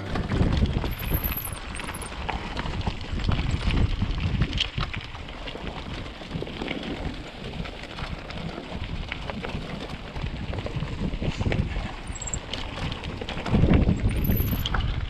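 Mountain bike ridden over a rough trail: tyres on dirt and stones, with a steady run of small clicks and rattles from the bike and wind on the microphone. It gets louder and rougher for a second or so near the end.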